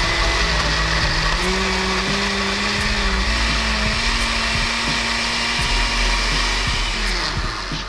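Countertop blender running, puréeing tomatoes, onion, garlic and chipotle chiles with a little water into a salsa. Its motor pitch steps up twice in the first few seconds, and it switches off near the end.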